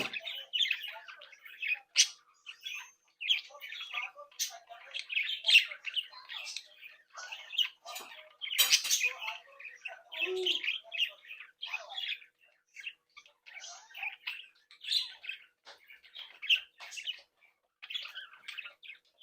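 Young budgerigars (budgies) chattering, with a dense, irregular stream of short chirps, squawks and warbles. A louder, harsher squawk comes about nine seconds in.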